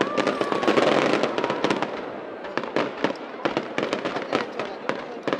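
Aerial fireworks going off in a dense run of sharp pops and bangs, with a whistling tone in the first couple of seconds.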